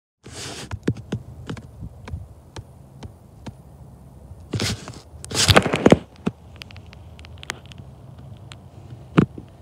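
Handling noise on a handheld camera's microphone: rustles and irregular clicks and knocks, the loudest a rustling burst about five and a half seconds in, over a faint steady low rumble.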